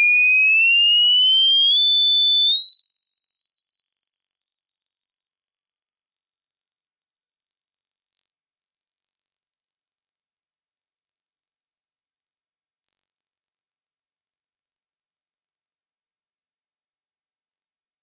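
Pure sine tone from a phone dog-whistle app, a single high whistle rising slowly and steadily in pitch as the frequency is swiped upward, holding briefly about two seconds in and stepping up slightly about eight and thirteen seconds in.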